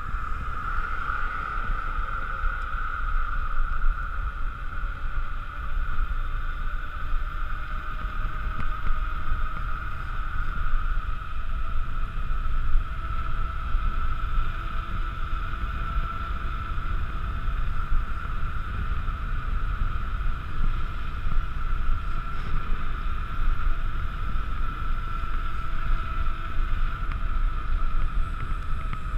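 Wind buffeting the action camera's microphone and a mountain bike's tyres rolling on asphalt during a fast road descent, with a steady high hum throughout and a fainter tone slowly climbing in pitch.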